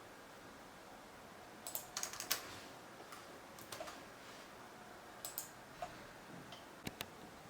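Intermittent typing on a computer keyboard: short, faint runs of key clicks, the busiest about two seconds in, with scattered single clicks later.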